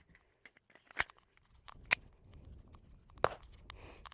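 Glock 44 .22 LR pistol being handled and readied to fire its last two rounds: three sharp clicks about a second apart, with fainter ticks and rustle between.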